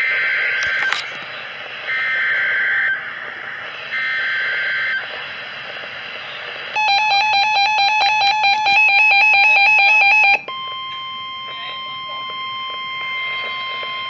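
Reecom NOAA weather radio going into an alert: three one-second bursts of warbling digital SAME header tones about two seconds apart over radio hiss. Then about three and a half seconds of a rapidly pulsing, piercing alarm beep, cutting straight over to the steady 1050 Hz NWS warning alert tone.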